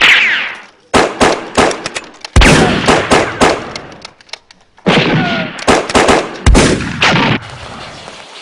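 Gunfire sound effects: a few single shots with echo, then rapid volleys in the middle and again in the second half, stopping suddenly about a second before the end.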